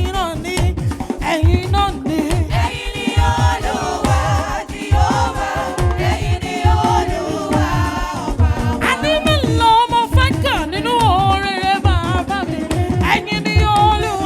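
Gospel praise music: singing with wavering, ornamented lines over a steady beat of drums and bass.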